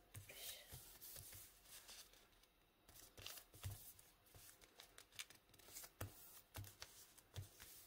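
Faint rustles and short crinkles of origami paper as it is folded and its creases are pressed flat by hand on a wooden table, with a brief lull about a third of the way in.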